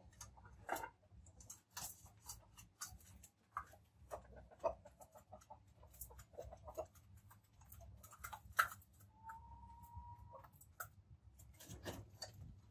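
Chickens pecking grain from a metal bowl and off concrete, a rapid irregular ticking of beaks, with a few soft clucks and one longer drawn-out call about nine seconds in.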